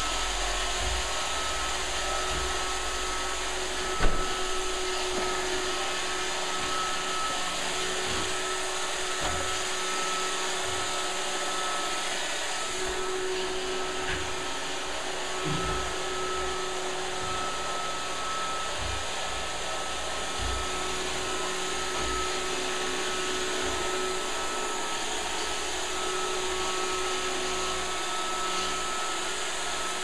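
Roomba robot vacuum running steadily, its motor noise carrying a few steady whining tones. A single sharp knock comes about four seconds in.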